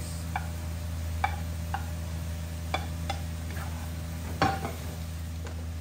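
Wooden spatula scraping scrambled eggs off a plate into a wok and stir-frying them with cabbage and carrot: scattered knocks and scrapes against the pan, the loudest a little past four seconds in, over a steady low hum.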